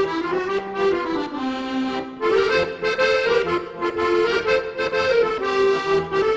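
Instrumental background music: a melody over held chords, with a short break about two seconds in.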